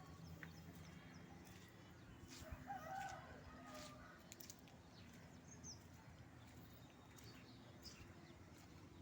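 Near-silent room with faint bird calls: a short burst of calls about three seconds in and a few high chirps a little later.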